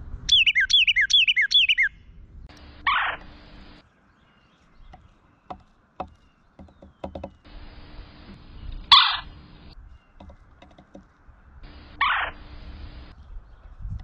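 A Carolina wren sings a rapid string of looping, repeated phrases for under two seconds. Then a red-bellied woodpecker gives three harsh calls, each falling in pitch, a few seconds apart, with a few faint clicks between them.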